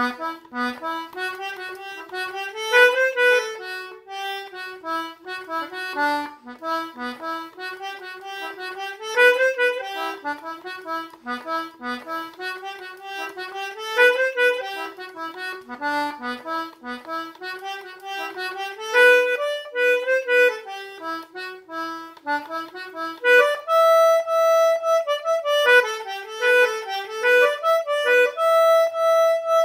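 Concertina playing a folk tune in quick notes, the melody going round in phrases every five or six seconds. About three-quarters of the way through it moves to longer held notes.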